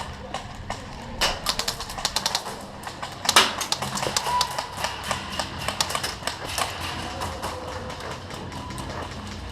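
Airsoft guns firing in short rapid bursts of sharp clicks, with a loud burst about three and a half seconds in and scattered shots after.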